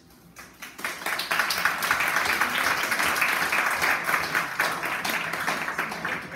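Audience applauding: a roomful of people clapping, swelling within the first second and thinning out near the end.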